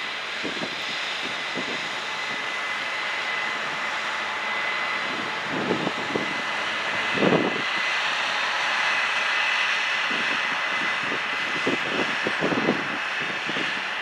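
Corn-harvesting farm machinery running steadily: an even rushing noise with a steady high whine, broken by a few short, louder low sounds about six, seven and twelve seconds in.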